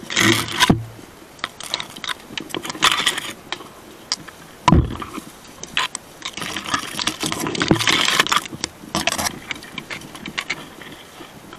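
Dry brush and twigs crackling and snapping in irregular bursts, with two dull thumps, one near the start and one about five seconds in.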